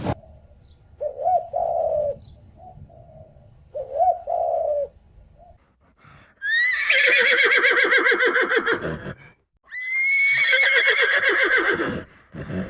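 Two short soft coos from a dove or pigeon, then a horse whinnying twice, each whinny a long quavering call that drops in pitch at the end.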